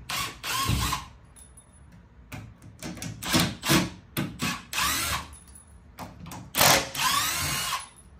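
Cordless power driver backing screws out of a wooden shipping crate, running in about six short bursts with the motor whine gliding in pitch, the longest burst near the end.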